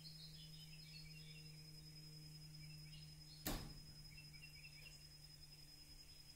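Near-silent outdoor ambience: faint chirping and a steady low hum, broken about three and a half seconds in by a single sharp knock.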